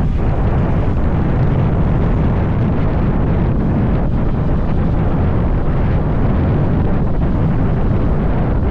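Loud, steady wind buffeting on the microphone, a low rumble that covers everything else.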